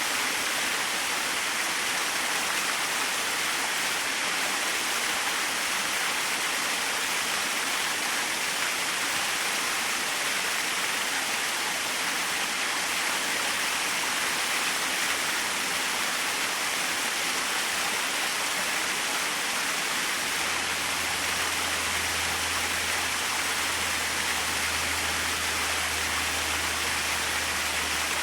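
Small waterfall splashing steadily, an even rush of falling water. About two-thirds of the way through, a low steady hum joins underneath.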